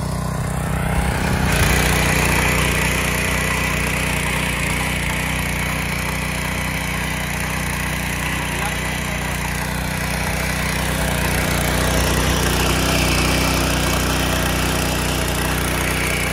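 Small air-cooled engine of a 7.5 HP SP-1100 power weeder running steadily under load while its rotary tines churn through dry, stony soil. About a second and a half in, the sound becomes fuller and louder, with a hiss of soil over the engine.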